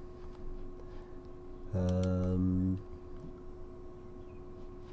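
A man hums or voices a drawn-out 'mmm' on one low held note for about a second, a little under two seconds in, over a faint steady electrical hum.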